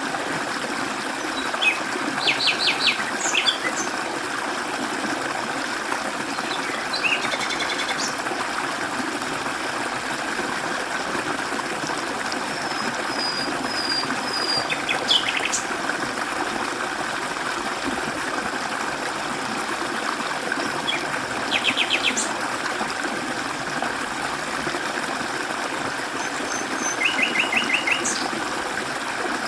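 Mountain stream running steadily over rocks, with small birds calling over it: several short, rapid trilling phrases spread through, and a thin high whistled series near the middle.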